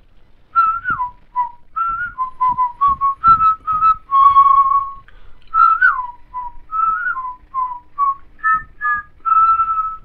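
Background music led by a whistled tune: a melody of short notes, several sliding down in pitch, over a light rhythmic accompaniment.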